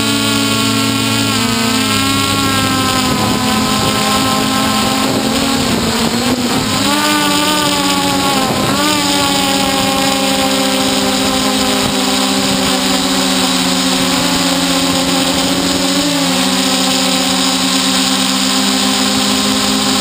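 Hexacopter's electric motors and propellers humming steadily as several close tones. The pitch wavers and rises in the middle and dips briefly later on as the motor speeds change while the craft manoeuvres.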